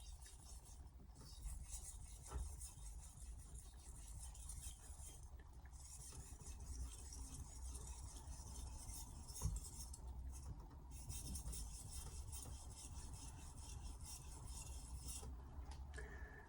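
Blue carbon-steel Hatsukokoro knife blade being stroked back and forth across a splash-and-go Altstone RIN whetstone, a faint rasping scrape in several runs of strokes with brief pauses between them. The stone is cutting fast and raising a burr.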